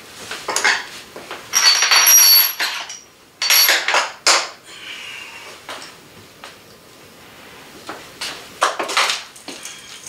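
Porcelain toilet bowl being lowered over the closet flange and shifted into place: a run of scrapes and knocks, the loudest about two and four seconds in, with smaller ones near the end.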